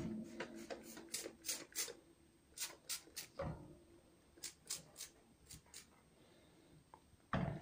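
Trigger spray bottle of sanitizer squirting in quick runs of short hisses, about fifteen squirts in several groups. Dull knocks at the start, about three and a half seconds in, and near the end are the loudest sounds.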